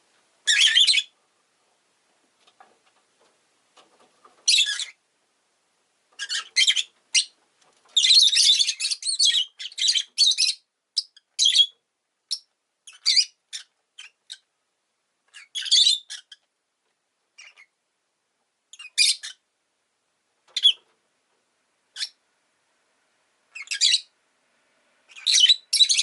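Rosy-faced lovebird calling in short, shrill, high-pitched chirps and squawks in irregular bursts, with quiet gaps between them. The calls come thickest in a rapid run from about six to twelve seconds in.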